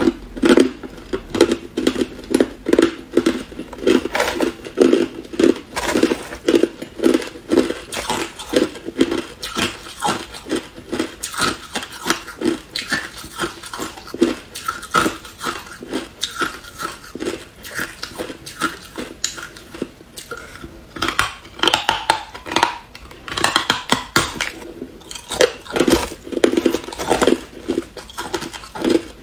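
Hard ice being bitten and chewed: a steady run of sharp, loud crunches.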